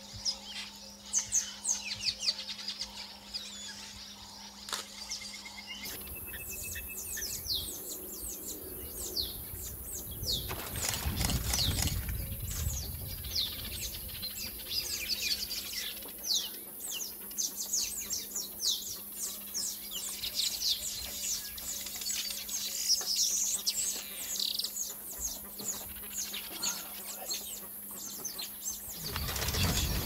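Wild birds chirping and calling in a busy chorus of short, quick down-sliding notes over a steady low hum. There is a brief low rushing noise about eleven seconds in.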